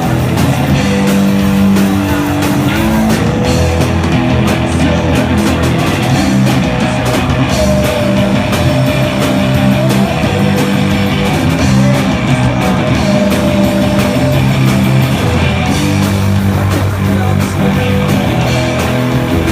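A rock band playing live, loud and without a break: electric guitars, bass and drums.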